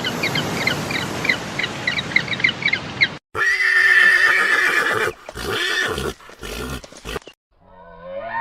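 Horse neighing: a loud, quavering whinny about three seconds in, followed by a few shorter, separate sounds. Before it, a noisy stretch with quick high chirps about three times a second; near the end a different rising call begins.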